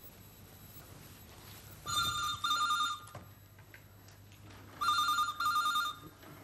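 Desk telephone ringing with the British double ring, twice: two warbling "brr-brr" rings about three seconds apart.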